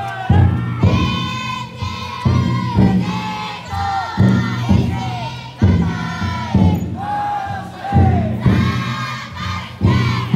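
A futon-daiko festival float's taiko drum beaten in a slow, steady beat, with a crowd of carriers chanting together in long held calls that drop in pitch at the end.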